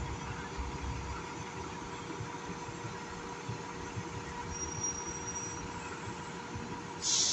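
Fire engine idling in its station bay, a steady low hum, with a brief high hiss near the end.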